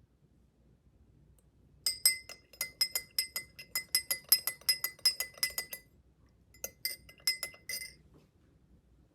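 A metal utensil rapidly and repeatedly striking the inside of a glass vessel, about five ringing clinks a second for some four seconds, as when stirring or whisking briskly. After a short pause a few more clinks follow.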